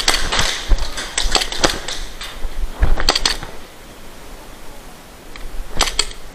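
Airsoft pistols firing: volleys of sharp cracks and clicks, a quick run in the first two seconds, another burst about three seconds in, and a pair near the end.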